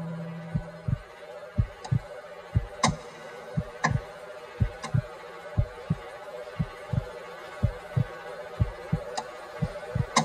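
Heartbeat sound effect: paired low thumps, lub-dub, about once a second, some with a sharp click on the second beat, over a steady low hum.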